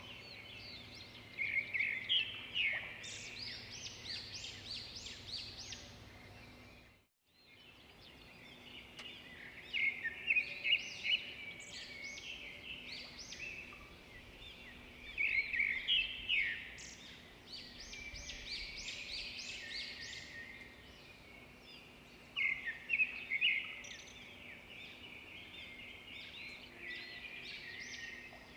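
Many small birds chirping together in a dense, continuous chorus of short, overlapping calls. It drops out completely for a moment about seven seconds in.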